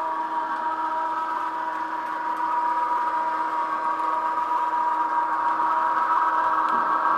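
A model CC 6558 electric locomotive running along layout track, its small electric motor and drive giving a steady whine with a constant high tone, growing a little louder near the end.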